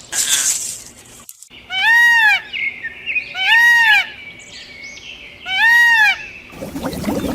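An animal calling three times, each a short cry about half a second long that rises and falls in pitch.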